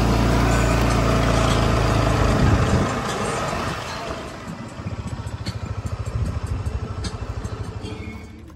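Motorcycle engine running with a steady note, then easing off about three seconds in to a quieter, pulsing idle.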